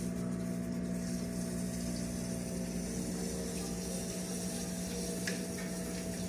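Aquarium pump or filter running with a steady hum over the wash of moving water, and one light click about five seconds in.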